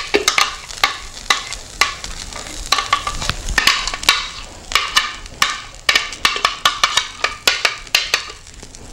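Irregular light clicks and taps, several a second, as a plastic blender jug is tipped and scraped out and thick, creamy homemade requeijão drains from it.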